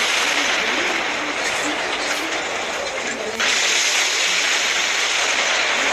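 Steady rushing noise of an airliner during an emergency landing after the brace call. It jumps louder about three and a half seconds in, with faint voices underneath.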